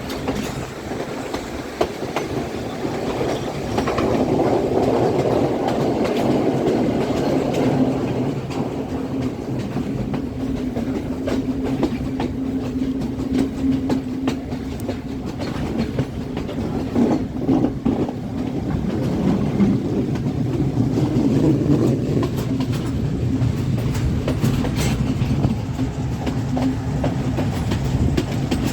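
Passenger express train running on the rails: a steady rumble and low drone, with wheels clicking over the rail joints. It grows louder for a few seconds at a time.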